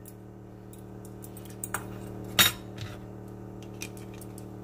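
A few light clinks and knocks from a metal tablespoon and a glass vinegar bottle being handled on a kitchen counter, the loudest a sharp clink about halfway through. A steady low hum runs underneath.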